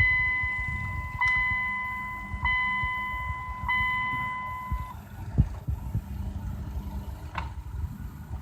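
Dodge Journey's dashboard warning chime with the ignition key in the accessory position, ringing four times about a second and a quarter apart, each a single tone that fades. It stops about five seconds in, and a single knock follows.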